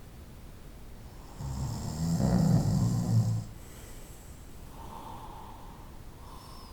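A sleeping person snoring: one loud, low, fluttering snore starting about a second and a half in and lasting about two seconds, followed by faint, quieter breath sounds.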